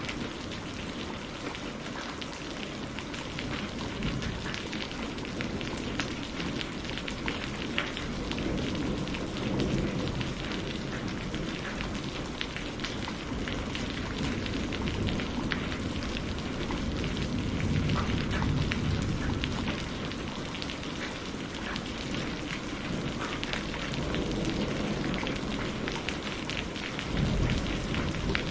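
Steady heavy rain with dense drop patter, and low rolls of distant thunder rumbling up several times, about ten seconds in, near the middle and near the end.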